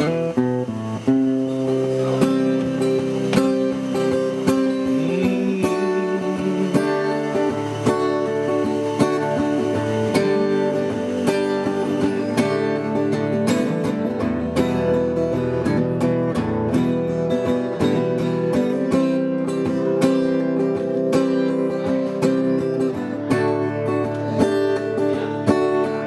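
Acoustic guitar strummed in a steady rhythm, chords ringing, with no singing.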